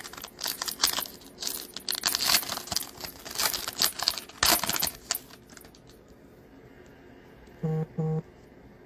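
Crinkling and tearing of a foil trading-card pack wrapper as it is ripped open and handled, a dense run of sharp crackles that stops about five seconds in.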